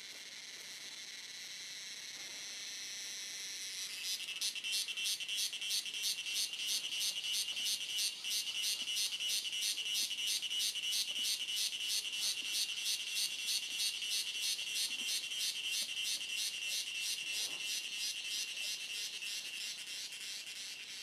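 Forest insects calling: a high, steady drone swells over the first few seconds, then a loud, high pulsing buzz starts suddenly about four seconds in and repeats about four times a second, easing off slightly near the end.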